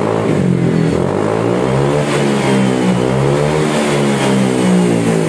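Honda PCX 160 scooter's single-cylinder engine revved up and down several times through an SKR aftermarket racing exhaust, its pitch rising and falling with the throttle. The exhaust note is mellow ("adem"), the milder second version of the muffler built to the owner's request.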